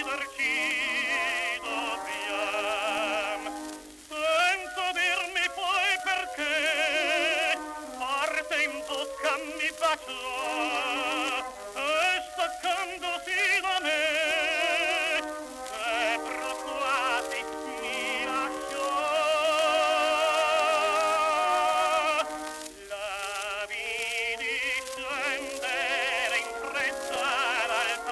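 Acoustically recorded 1921 Victor 78 rpm disc of a Neapolitan song for tenor and orchestra, with a wavering vibrato melody line. The music is thin and cut off above about 4 kHz, with record-surface hiss and crackle over it.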